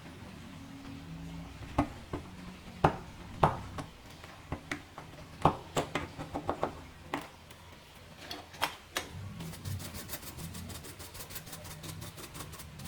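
Hard plastic laptop parts and small hand tools being handled on a bench: scattered clicks and knocks, then a fast, even run of about seven ticks a second near the end.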